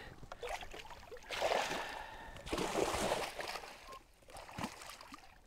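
Water splashing as a muskie thrashes in a landing net at the boat's side: two splashy bursts about a second apart, each lasting roughly a second.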